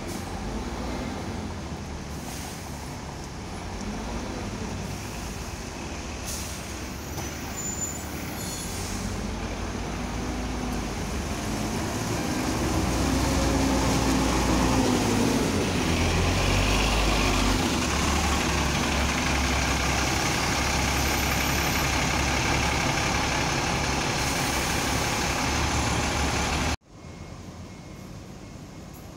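Double-decker bus diesel engine pulling away from the stand and passing close by, growing louder to a peak about halfway, its engine note rising and falling as it goes. Near the end the sound drops suddenly to quieter street traffic noise.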